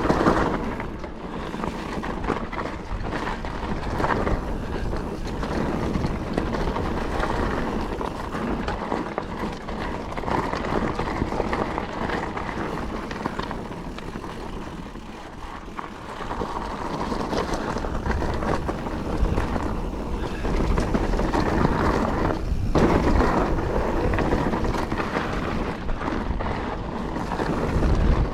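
Calibre Triple B mountain bike riding a dry, loose trail: tyres rolling over loose dirt and gravel with frequent small clicks and knocks from the bike, and wind buffeting the microphone. The noise eases off around the middle and builds again toward the end.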